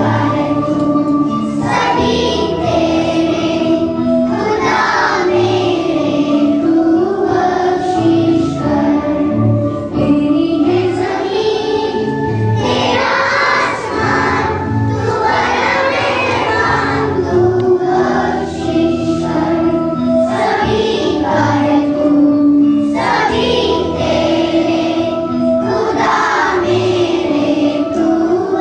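A choir of schoolgirls singing a morning prayer song together, holding long notes that rise and fall.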